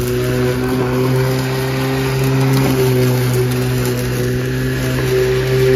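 Corded electric lawn mower running steadily as it is pushed across grass, its motor giving a constant hum.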